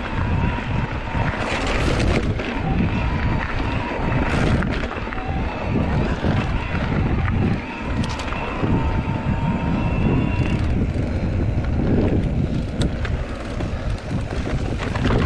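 Wind buffeting the microphone: a loud, uneven low rumble with brief gusty surges and crackles.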